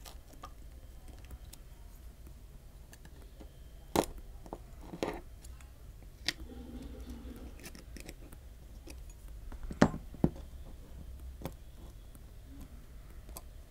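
Small hand-tool clicks and taps: a metal spudger and fingertips knocking against a phone's metal frame and internal parts while the side-button flex cable is pried free. A handful of sharp clicks, loudest about four seconds in and two close together near ten seconds in, over a faint low hum.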